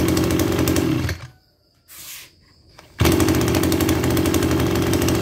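Maruyama MBS328 backpack brush cutter's 32.8cc two-stroke engine idling, then cut off about a second in and dying away. About three seconds in it is started again on its spring-assisted recoil starter and catches at once, idling steadily.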